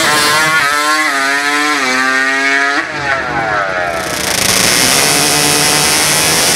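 A drag-racing ATV or motorcycle engine at high revs under full throttle. Its pitch climbs, drops once at a gear change, holds, then cuts off about three seconds in, and a steady rushing noise follows.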